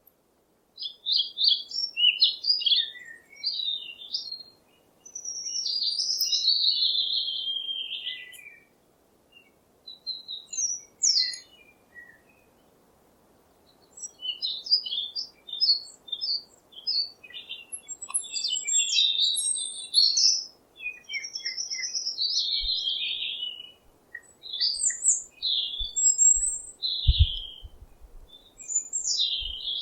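Songbirds chirping and singing in bursts of quick high notes and trills, with short pauses between phrases. A few low thumps sound near the end.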